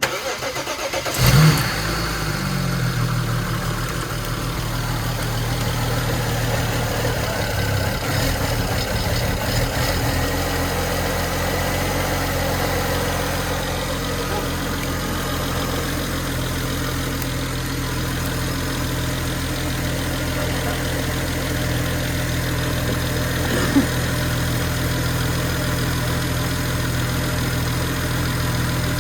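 BMW 335i's N54 twin-turbo straight-six cranking and catching on its initial start after an oil cooler hose repair. It flares up about a second in, then settles into a steady idle.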